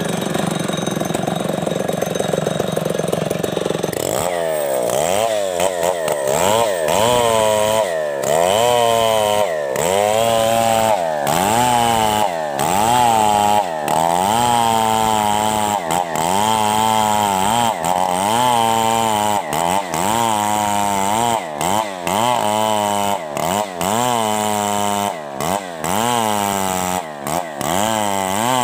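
Two-stroke chainsaw running at high revs for about four seconds, then its engine pitch repeatedly dropping and climbing again roughly every second and a half as it cuts lengthwise through a coconut palm trunk.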